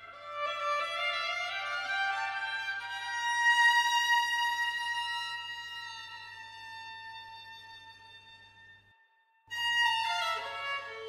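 Violin music: slow, sustained notes that slide upward over the first few seconds, then a long held note that fades away. After a brief pause about nine seconds in, new notes begin, joined by a lower held note near the end.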